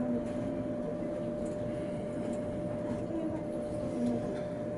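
Tatra K2P tram heard from inside the driver's cab: a steady electrical hum holding one constant pitch over a low, even running rumble.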